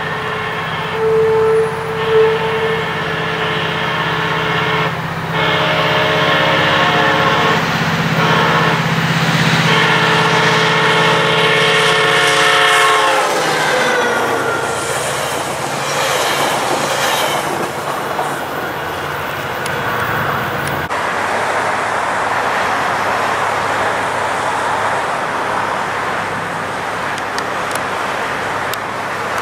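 SunRail commuter train sounding its horn as it comes up, with its diesel running underneath. The horn's pitch drops as the train passes about 13 seconds in. Then comes the steady rumble and clatter of its bilevel coaches rolling by on the rails.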